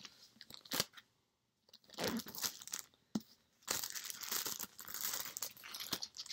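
Plastic shrink-wrap crinkling and tearing as it is peeled off a book: a short burst about two seconds in, then a longer stretch of crinkling through the second half.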